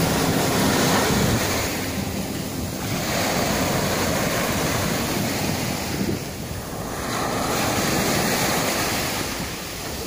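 Small sea waves washing up on the shore, the surf swelling and falling back about three times. Wind rumbles on the microphone.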